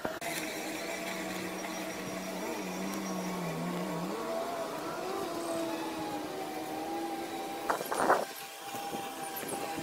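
Robomow RS622 robotic lawnmower's electric motors humming steadily as it mows, the pitch wavering as it drives. A short cluster of knocks comes about eight seconds in.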